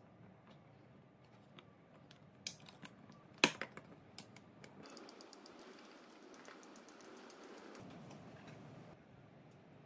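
Hard plastic clicks and knocks as a 3D-printed battery module enclosure is handled and fitted together, with one sharp knock about three and a half seconds in. Then a hand screwdriver turns a screw into the plastic enclosure, a scratchy grinding with fine rapid clicks, for about four seconds before stopping near the end.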